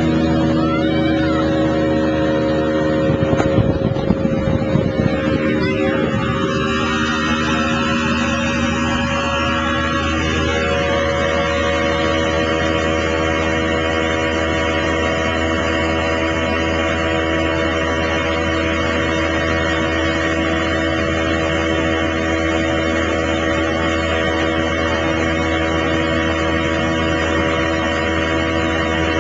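Motorboat engine running at a steady speed while under way, with a few knocks and thumps about three to five seconds in.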